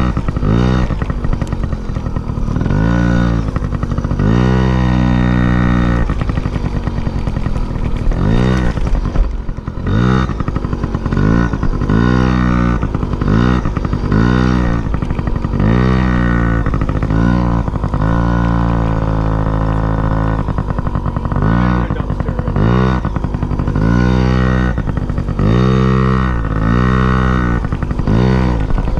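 An engine revving up and down over and over, roughly once a second, its pitch rising and falling with each burst of throttle. Twice it holds steadier revs for a second or two.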